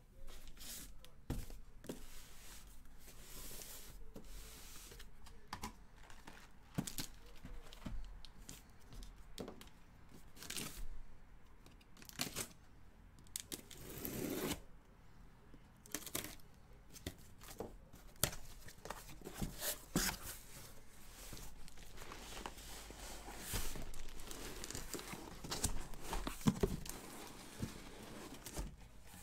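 A cardboard shipping case being opened by hand: cardboard tearing, rustling and scraping in irregular bursts, with scattered knocks as the case is shifted about.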